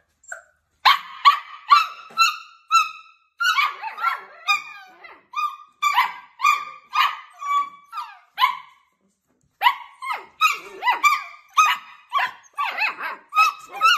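A litter of Samoyed puppies yapping: a rapid string of short, high-pitched barks from several puppies at once, with a brief pause about nine seconds in.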